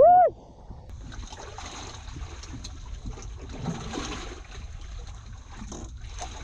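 A brief shout right at the start, its pitch rising and falling, then water trickling and splashing at a lower level.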